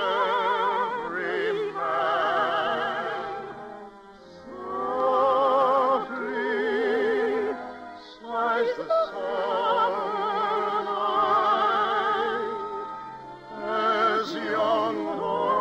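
Operatic singing with a wide vibrato over orchestral accompaniment, sung in long held phrases with short breaks between them, from an operetta number in an old radio broadcast.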